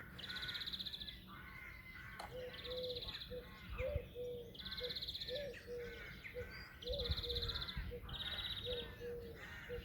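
Morning garden birdsong from several birds: a high buzzy trill about half a second long repeating every two seconds or so, with quicker warbled notes and short low calls between.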